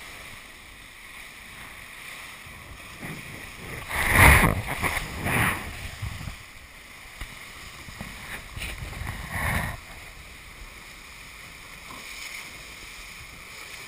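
Steady rush of water and wind past a racing multihull under sail. Three louder surges of water come about four, five and nine and a half seconds in, the first the loudest.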